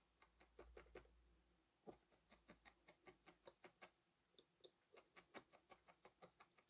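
Felting needle jabbing lightly and quickly through loose wool fibre into a foam mat: faint, quick ticks, about four or five a second. These are shallow stabs that only tack the wool in place while the template is being filled.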